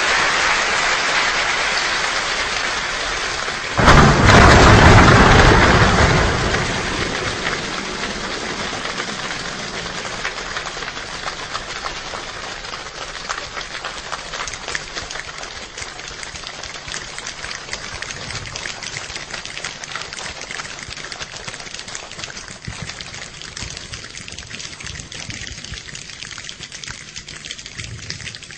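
A choir's hand and body percussion imitating a rainstorm: a dense patter of rain-like taps, with a loud, deep rumble of thunder about four seconds in. The patter then thins into scattered clicks and slowly dies away, like a shower ending.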